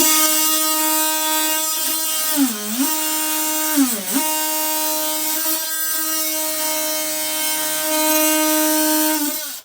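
Handheld power tool running at a steady high-pitched whine while cutting rotten OSB board, its pitch dropping twice as the tool bogs down under load and then recovering.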